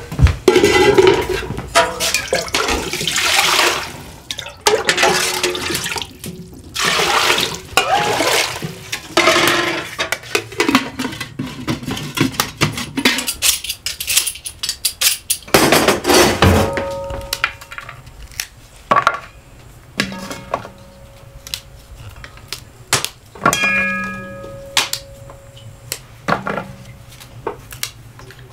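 Water splashing and being poured in a metal basin in long rushes. After that come separate clinks and knocks of metal kitchenware and knives, some leaving a short ringing tone.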